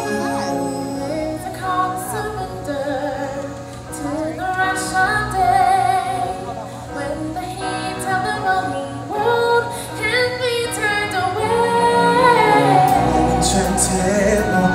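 A woman singing long, sliding melodic lines over musical accompaniment in a live stage-show performance; a deep bass comes in near the end.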